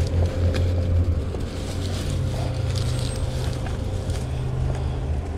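A steady low hum that steps up slightly in pitch about two seconds in, with light rustling and handling noises as a plastic shopping bag is packed into a backpack.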